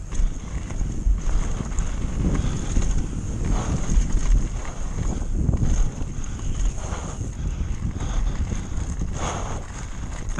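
Mountain bike descending a dry dirt trail at speed: wind buffeting the camera microphone over the rattle of tyres on dirt and stones, with several louder knocks as the bike hits bumps.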